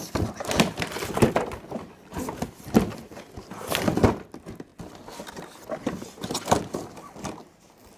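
Gift packaging being handled and unpacked: irregular knocks, clicks and rustling.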